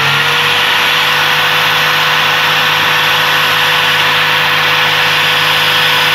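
Small electric angle grinder running unloaded at full speed, about 9,100 rpm on full mains voltage: a loud, steady motor whine that holds one pitch throughout.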